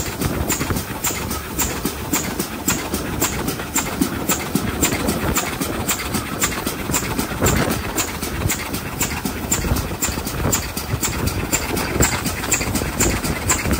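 Prairie tank locomotive No. 5552, a 1928 Swindon-built GWR 2-6-2T, working a train: its steam exhaust beats come evenly, about four a second, over a steady rumble of the train running on the rails.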